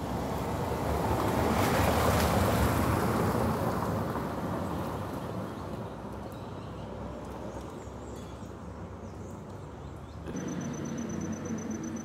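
Outdoor garden ambience: a broad rushing noise swells over the first few seconds and then fades. Just after ten seconds the sound changes abruptly to a low hum with a thin, steady high-pitched tone.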